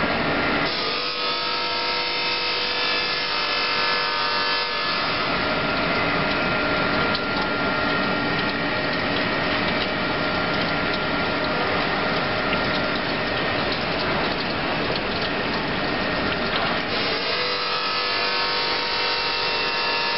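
LW25-80 chain link fence weaving machine running steadily, a continuous mechanical noise from its drive and wire-weaving head. Its few steady tones fade about five seconds in and return near the end.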